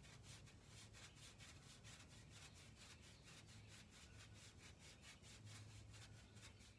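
Plastic manure-fork tines scratching back and forth over a horse's coat: a faint, even scratching of quick strokes, several a second.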